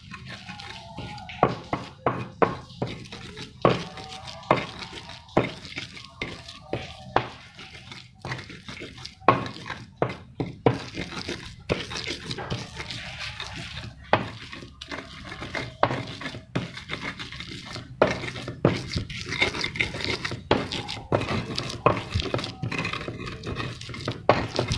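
A pestle grinding chilies and garlic into sambal in a stone cobek mortar. It knocks sharply against the stone about once a second, with a gritty scraping grind between the strokes.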